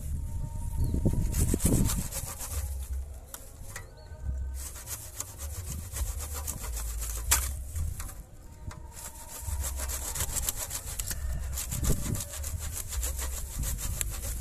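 Hand saw cutting back and forth through the woody stem and roots of an ileng-ileng shrub, in rapid strokes in two spells with a short pause in the middle.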